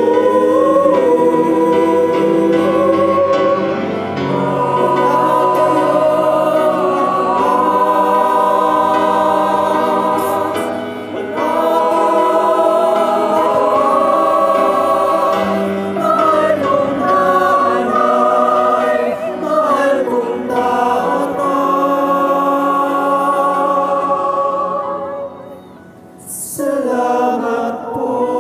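A male soloist and a choir singing a slow Tagalog ballad into microphones, with accompaniment; the music briefly drops away near the end before the voices come back in.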